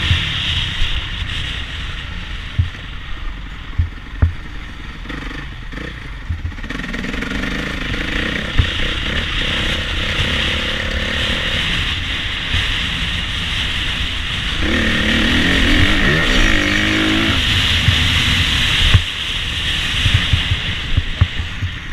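Onboard sound of a Honda CRF450 single-cylinder four-stroke motocross bike being ridden on a dirt track. The engine runs under changing throttle, with the pitch rising and falling about two-thirds of the way through. Wind rushes over the microphone, and sharp knocks come from bumps in the track.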